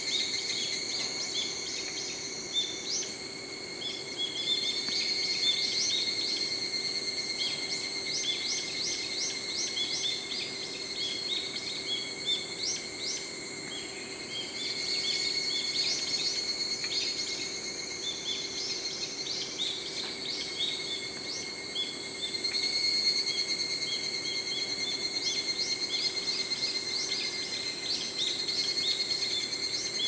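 A chorus of higurashi (evening cicadas, Tanna japonensis) calling: overlapping trains of rapid repeated high notes that swell and fade in waves, over a steady high ringing.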